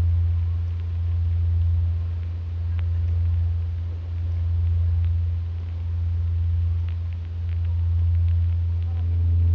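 A steady low hum that swells and fades about once a second, with faint scattered ticks above it.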